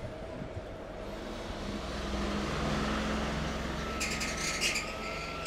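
Street traffic: a motor vehicle's low engine rumble swells past and fades, with a brief high-pitched sound about four seconds in.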